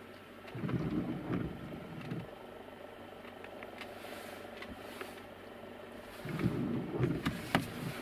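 Inside a slowly moving car: a low rumble of engine and tyres swells twice, with a few light clicks in between.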